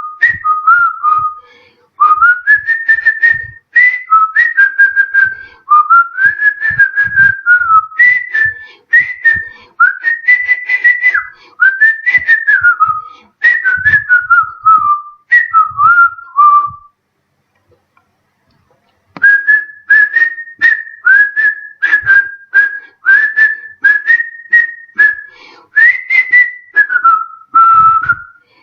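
A man whistling through his lips: phrases of quick, sharply started notes that slide up and down in pitch, breaking off for about two seconds a little past the middle before carrying on.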